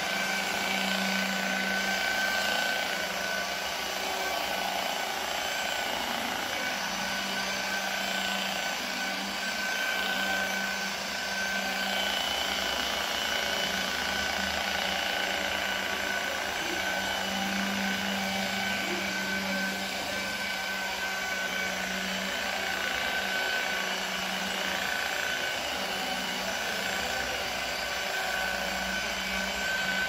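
Corded electric rotary polisher running steadily, its pad buffing car paint with polishing compound.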